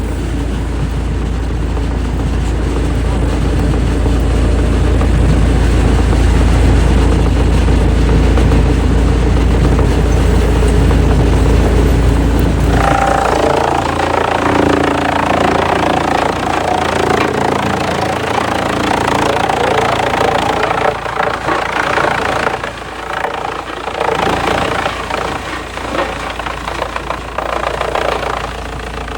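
Heavy wood-processing machinery running: a steady deep engine rumble, then about halfway through the low rumble drops away and a noisier, uneven sound takes over, rising and falling near the end.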